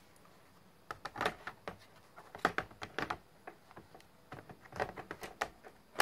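Plastic clicks and knocks as a laptop battery pack is fitted into the underside of an Acer Aspire 2930Z laptop, ending in a sharper click as it is pressed home.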